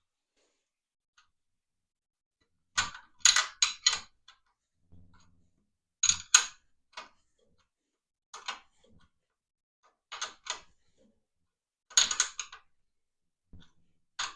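Hand tools working on a tractor's starter switch fittings: short bursts of two to four metallic clicks and clinks every couple of seconds, with near silence between them.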